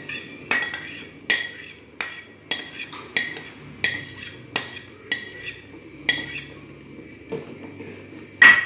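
Metal spoon tapping and scraping against a glass pot lid about every half second, knocking sliced spices off it into a saucepan, each tap leaving a short ring. A louder clank comes near the end.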